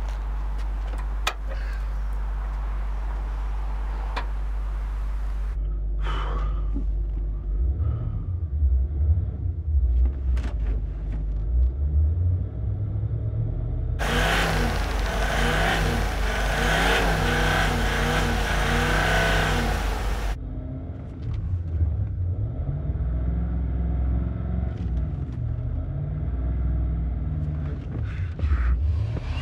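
A car engine idling with a few sharp clicks, then revving up and down repeatedly. The loudest stretch, near the middle, is several seconds of heavy noise over the engine.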